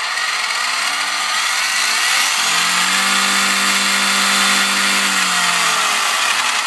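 Tekin Pro4 4000kV sensored brushless motor and drivetrain of a Losi TEN-SCTE short course truck spinning up under throttle. The whine rises in pitch over about three seconds, holds steady for about two, then falls away near the end. At these higher revs the truck starts vibrating, which the owner traces to a wobbling rear driveshaft.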